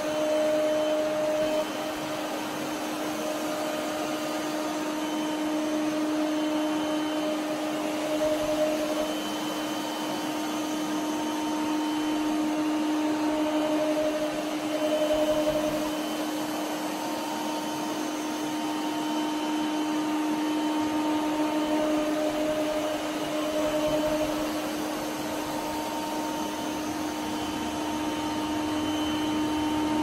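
Laresar Evol3 robot vacuum running: a steady motor hum with a constant tone, and a second, higher tone that comes and goes every few seconds.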